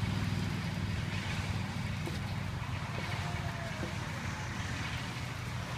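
A motor vehicle engine running steadily with a low rumble, a little louder at the start and easing off slightly.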